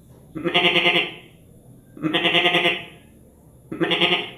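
A man's voice imitating the bleat of a male goat: three bleats, each just under a second long.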